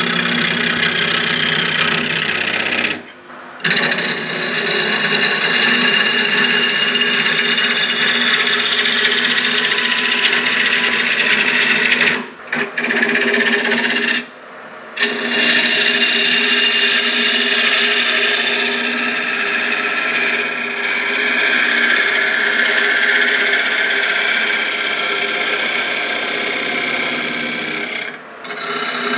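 Woodworking power machinery running and cutting or abrading wood, a steady machine hum under a loud rasping hiss. It comes in several separate stretches that cut off abruptly, about three, twelve, fourteen and twenty-eight seconds in.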